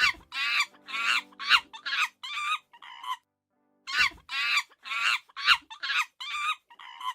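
Chicken calling: two runs of short, wavering calls, about six in each, with a pause of about a second between them.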